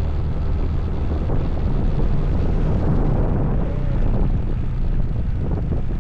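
Steady wind rush on the camera's microphone and the running noise of a motorcycle under way, heavy and low.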